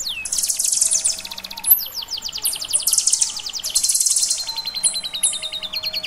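Kinoi songbird singing a loud, continuous song of rapid high trills, with short whistles that sweep quickly downward.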